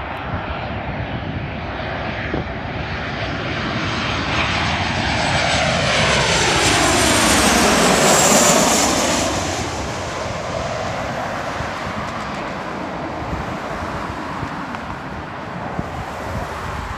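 Boeing 737-800 airliner's CFM56 jet engines on final approach, landing gear down. The sound grows to its loudest as the jet passes low overhead about eight seconds in, with a high whine that falls in pitch as it goes by. It then fades to a steady distant rumble.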